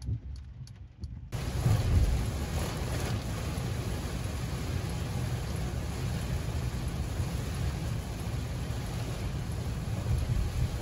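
Heavy rain pelting a moving car, heard from inside the cabin, a steady rushing hiss over a low road rumble, with the wipers on full speed. It starts abruptly about a second in, after a few regular ticks inside the car.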